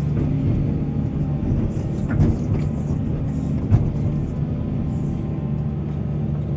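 Heavy excavator's diesel engine running steadily, with two short knocks about two seconds and three and a half seconds in.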